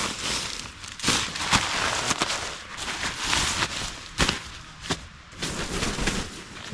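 Sleeping pad being inflated with a nylon pump bag: repeated surges of rushing air and crinkling fabric, with sharp crackles in between.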